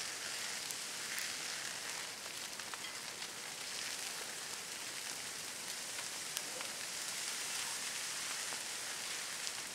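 Wildfire burning through dry brush and trees: a steady hiss of flames with scattered sharp crackles and pops.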